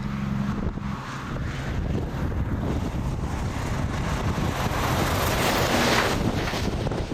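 Strong wind blowing across the microphone, a rushing, rumbling noise that swells into a louder gust about five to six seconds in.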